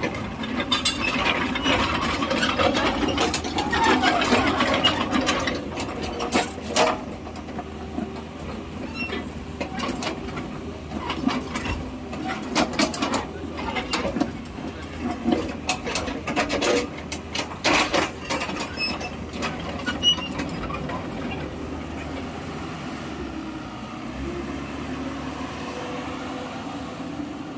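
Komatsu PC56-7 mini excavator working: its diesel engine runs steadily under shifting squeaks in the first few seconds and a run of sharp metal clanks and knocks from the moving machinery through the middle, then settles to a steadier run near the end.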